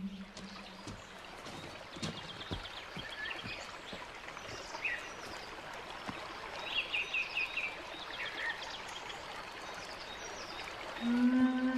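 Creek water running steadily, with birds chirping and trilling several times over it. Music comes in near the end.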